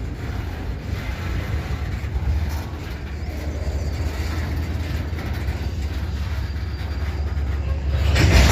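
Freight train of covered hopper cars rolling past, a steady low rumble of wheels on rail, with a louder rush of noise near the end.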